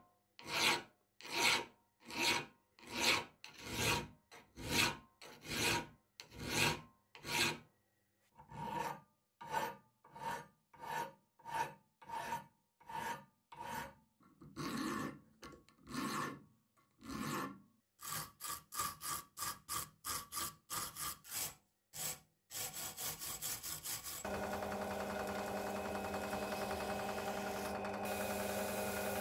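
A hand file scraping in long, even strokes, about one a second, across the edges of a breast drill's metal frame clamped in a vise, to remove sharp edges. Later the strokes come quicker, about three a second. From about 24 s a drill press motor runs with a steady hum while a wire brush is held against the spinning part.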